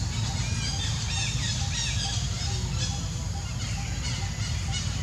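Birds chirping in a series of short, repeated high notes over a steady low rumble.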